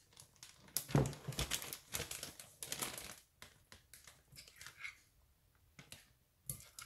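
Plastic zip-top bag crinkling and rustling in irregular bursts as it is held open and handfuls of herb seasoning are pushed into it, loudest about a second in and dying away after about five seconds, with one short crackle near the end.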